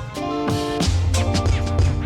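Background music with a steady beat: drums, bass and sustained chords.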